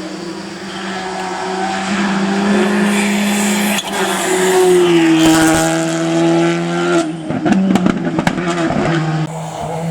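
Rally car engine running at high revs, getting louder over the first few seconds, then a rapid run of sharp pops and cracks about seven seconds in before the engine note picks up again.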